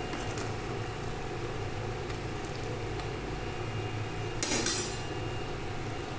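Steady low background hum in a kitchen, broken about four and a half seconds in by a brief clatter of a utensil against an aluminium cooking pot.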